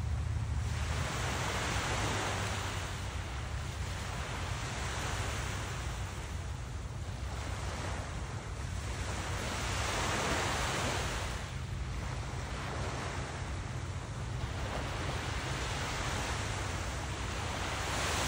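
Small ocean waves breaking and washing up on a sandy beach, each wash swelling and fading every three to four seconds, over a steady low rumble.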